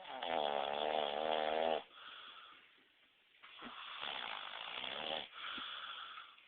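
A man snoring loudly in his sleep, two breaths' worth. First comes a long, droning, buzzy snore and a breathy outflow. After a pause there is a second, raspier snore and another breath out.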